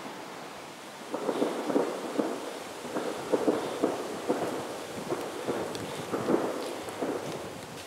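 A man breathing heavily in irregular, ragged gasps, starting about a second in, over a steady background hiss.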